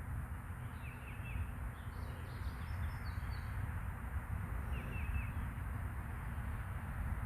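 Small birds chirping in short runs of two or three quick notes, a few times, over a steady low rumble and hiss.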